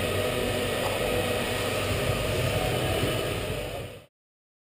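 Steady hum and hiss of an indoor electric go-kart track, with karts on the circuit, fading out to silence about four seconds in.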